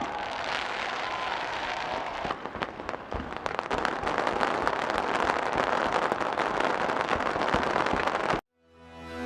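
Fireworks display: dense crackling with many sharp pops and bursts. It cuts off abruptly about eight seconds in, and music fades in just before the end.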